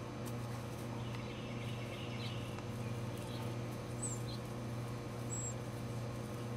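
A steady low hum runs under the whole stretch. Faint bird chirps come now and then over it, including two short high whistles about four and five and a half seconds in.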